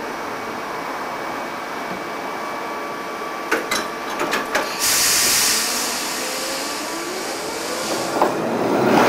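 Stationary Blackpool tram humming steadily, with a few sharp knocks about three and a half to four and a half seconds in, then a loud hiss lasting about a second. Near the end a rising, louder rumble as the tram starts to move.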